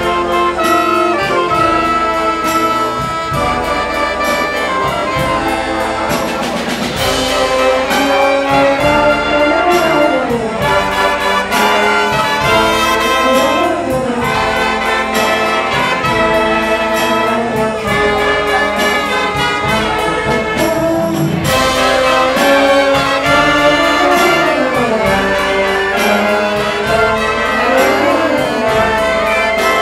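Concert wind band of clarinets, flute, saxophones and brass playing Azorean melodies, loud and full, with a sharp crash about seven seconds in and another a little past twenty seconds.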